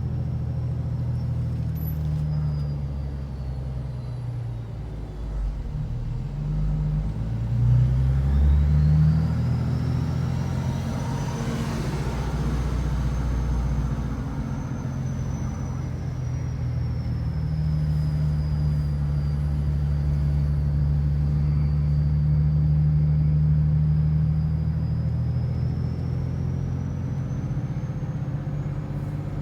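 BMW 335d's twin-turbo 3.0-litre straight-six diesel running, with a high thin turbo whistle over the engine note. The engine swells briefly about eight seconds in, and the whistle climbs in pitch, eases slowly downward, and rises again near the end.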